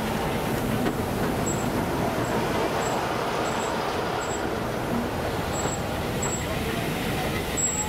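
Steady hiss and rumble from a standing Merchant Navy class steam locomotive simmering at the platform, with faint voices in the background.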